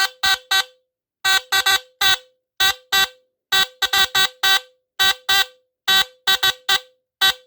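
ARO (Vigilant) fire and burglar alarm's battery-powered DC squealer buzzer being tested, sounding in about twenty short, irregularly spaced blasts of a harsh buzzing tone. A longer unbroken blast starts right at the end.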